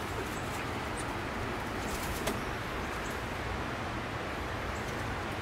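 Steady wind noise buffeting the microphone, with rustling foliage and a few faint, short, high bird chirps.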